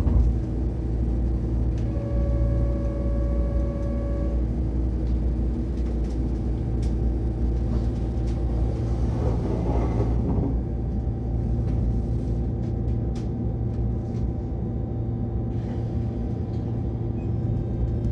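Keihan 10000 series commuter train standing at a station, heard from on board: a steady low hum from the car's equipment. A held tone sounds from about two seconds in for about two seconds, and there are scattered faint clicks and a short rush of air about ten seconds in.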